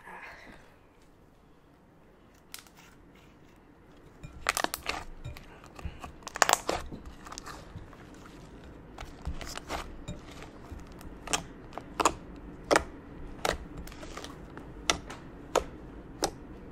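Cloud slime made with instant snow being stretched and pressed by hand in a glass bowl, close to the microphone, giving sharp crackles and wet pops. It is quiet for the first few seconds, then the pops come in clusters and, in the second half, at fairly even spacing, a little more than one a second.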